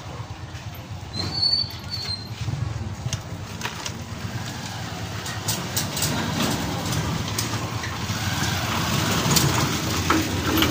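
A steady low engine hum, with scattered light clicks and clinks of hand tools and metal parts as a motorcycle engine is worked on, more frequent in the second half.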